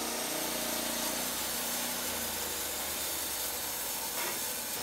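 Norwood LumberMate LM29 portable band sawmill running, its band blade cutting through a log with a steady hissing rasp over the drive's low running note. The low note shifts about two seconds in.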